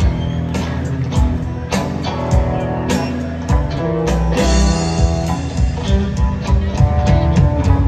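Live rock band playing: electric guitar, upright bass, drum kit and keyboards, with a steady beat of drum hits.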